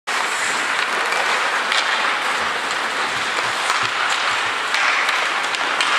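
Ice hockey game sounding in an indoor rink: a steady hissing wash of noise, with faint light clicks scattered through it.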